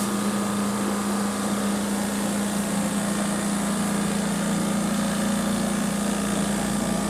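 Electric motor of air-conditioner cleaning equipment running steadily: a constant hum with an even hiss over it.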